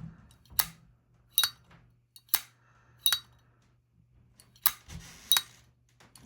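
Zippo lighters with sterling silver cases, their lids flicked open and snapped shut three times: six sharp metallic clicks in pairs, each with a brief ring.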